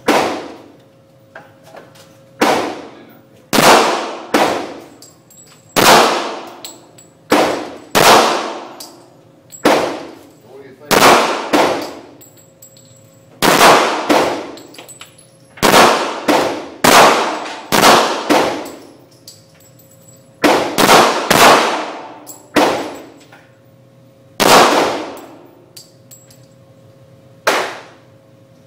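Pistol shots, about twenty fired at irregular intervals, some in quick pairs, each a sharp crack with a ringing tail that fades over about a second.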